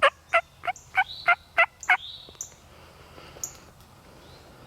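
Turkey yelping: a loud run of about seven short, evenly spaced yelps, roughly three a second, that stops about two seconds in. A few thin, high bird chirps follow.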